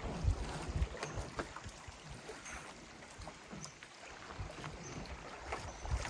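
Small lake waves lapping against the rocks of the shore, with faint splashes, and wind gusting over the microphone.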